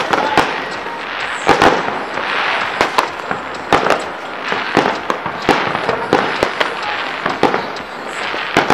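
Many fireworks and firecrackers going off at once: a dense, irregular string of sharp bangs and pops over a steady crackle.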